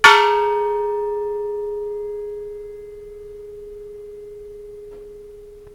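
Antique bronze Buddhist temple bell struck once: a bright clang whose upper overtones die away within about two seconds, while a single low hum rings on with a wavering trill. The bell has a tiny hairline crack, which barely affects its ring.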